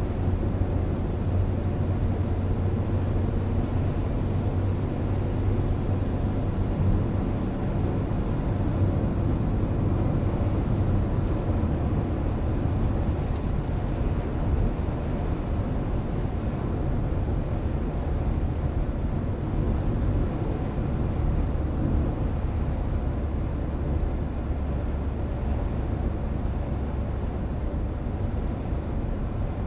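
Steady low rumble of a car driving on the open road, engine and tyre noise heard from inside the cabin, with the engine note dropping lower about two-thirds of the way through.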